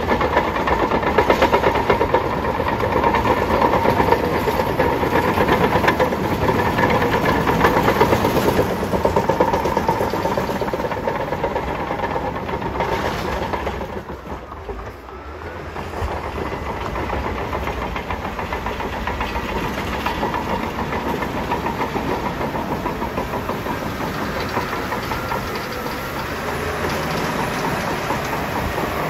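Bulldozer working close by: the diesel engine running hard under load with a dense, rapid clatter of steel tracks. About halfway through it briefly eases off, then carries on a little quieter.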